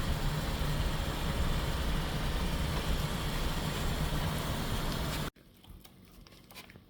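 Steady car engine and road noise, a low rumble that cuts off abruptly a little after five seconds in; then quiet room tone with a few faint clicks.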